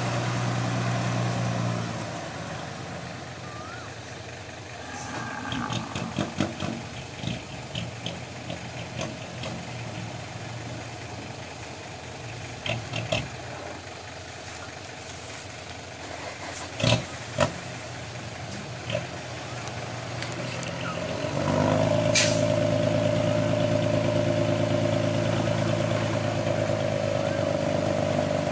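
Dump truck's diesel engine running at idle with scattered knocks and clicks, then about three-quarters of the way through it rises to a louder steady run as the hydraulic hoist tips the bed and the soil load slides out. A short sharp hiss marks the change.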